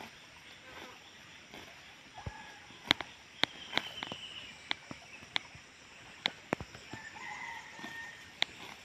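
Water buffalo grazing: sharp, crisp snaps at irregular intervals, about one or two a second, as it tears and crops grass. A distant rooster crows briefly about seven seconds in.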